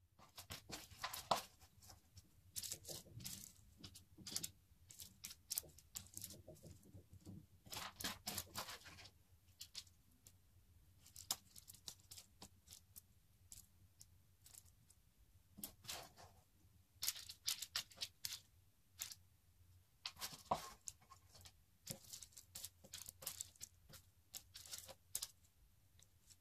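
Faint crackling and rustling of sticky, chocolate-caramel coated cornflakes being scooped with a wooden spoon and dropped in mounds onto parchment paper, with irregular small clicks and crinkles of the paper as the clusters are pressed into shape.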